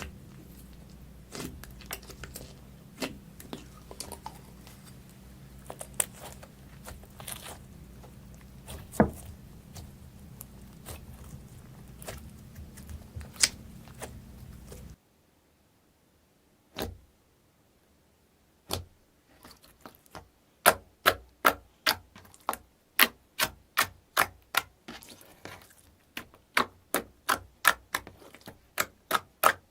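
Slime being squeezed and pressed, giving sharp clicks and small pops. For the first half the clicks are scattered over a low hum. After a sudden cut and a pause, the clicks come in a steady run of about two a second.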